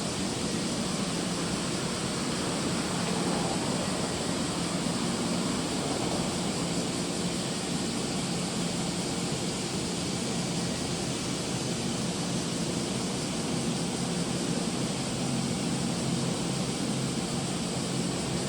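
Steady low hum of a coastal cargo ship's engine under a broad, even hiss of wind and water, unchanging throughout.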